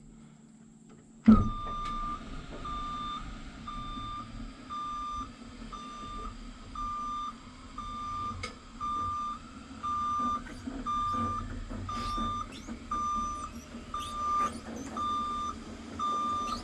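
JLG aerial work lift being lowered: after a clunk about a second in, its motion alarm beeps about once a second over the low hum of its drive and hydraulics.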